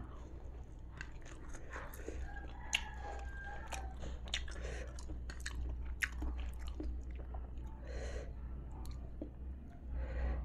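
Close-up chewing of a mouthful eaten by hand, with many small crisp crackles from crispy batter-fried tempe gembus.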